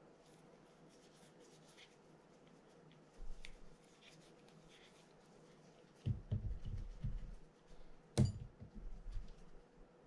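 Small parts and tools being handled during a spinning-reel strip-down: faint light ticks, then soft knocks a little past halfway, one sharp click about eight seconds in, and a few more knocks.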